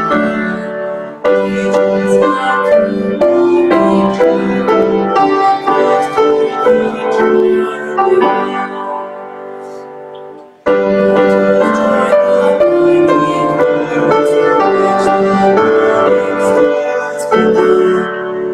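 Piano playing chords in the manner of a hymn accompaniment; the music dies away about eight to ten seconds in, then starts again at once and carries on.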